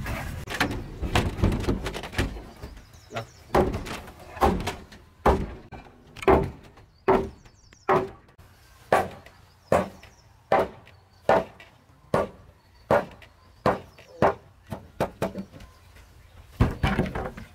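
A long series of sharp wooden knocks, blows struck on timber while a beam is fitted through the mortise of a post in a wooden frame, about one every three-quarters of a second, coming quicker near the end.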